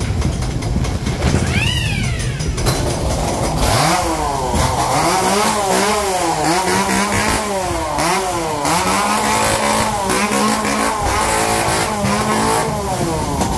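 Engine-like revving from a ghost-train effect, rising and falling in pitch again and again and stopping shortly before the end, over the constant rumble of the ride car. About two seconds in there is a brief squeal that rises and then falls.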